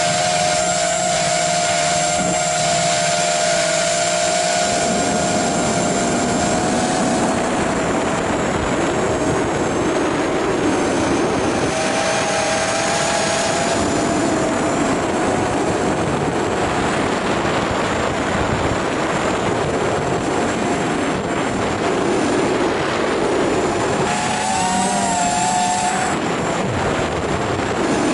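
Electric motor and propeller of an FPV flying wing whining steadily in flight, heard through the wing's onboard camera, with wind rushing over the microphone. Near the end the whine shifts up in pitch and wavers for a couple of seconds.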